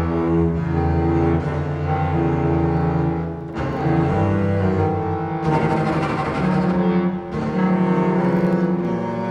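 Film score music for a silent film, with held low notes that change pitch every second or so.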